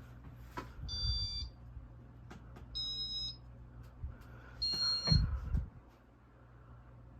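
Three short electronic beeps, each about half a second long and roughly two seconds apart, over the steady low hum of a running ceiling fan. Dull knocks come with the first and third beeps.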